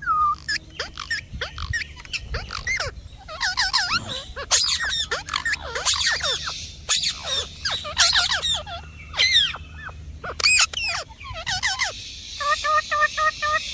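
A parrot chirping in quick, high, sweeping calls, ending with a rapid run of short repeated notes, about five a second.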